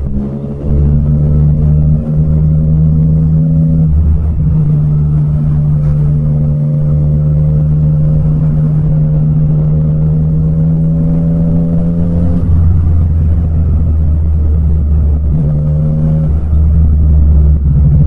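Yamaha MT-09 three-cylinder engine pulling under steady throttle while riding, its note creeping up slowly and dropping or shifting suddenly about four seconds in and again about two-thirds of the way through, as with gear changes or throttle changes.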